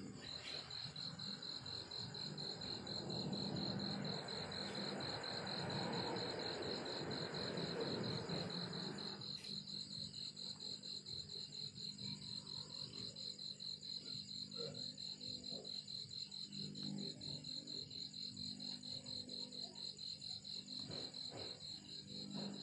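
A cricket chirping steadily in a fast, even pulse of high notes. Under it, for the first nine seconds or so, a broad rushing noise cuts off suddenly.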